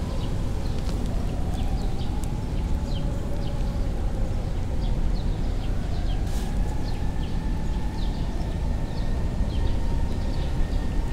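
Domestic cat purring steadily close to the microphone as it is stroked and rubs against a leg: a dense low rumble.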